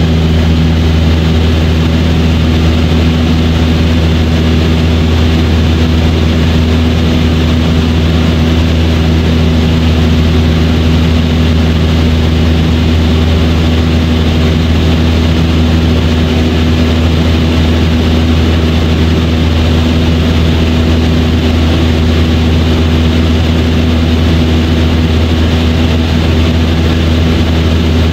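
Cessna 172's piston engine and propeller heard from inside the cabin, a loud steady drone with a deep hum and unchanging pitch, running at constant power.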